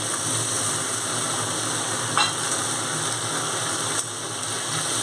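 Oil sizzling steadily in an aluminium kadai as strips of steamed taro stem are tipped onto potato strips frying in it, with a brief clink about two seconds in.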